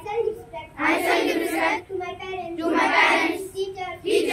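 Children reciting a pledge line by line: a boy's single voice through a microphone says each line, and a group of children answers in unison, about three exchanges.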